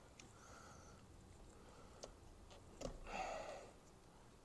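Near silence with faint handling noise from a steering-wheel airbag being unclipped: a few light clicks and a short rustle about three seconds in.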